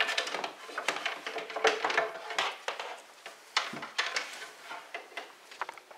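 Small hard objects being handled by hand: a dense run of clicks, clacks and rattles for the first three seconds, another short cluster about three and a half seconds in, then scattered clicks.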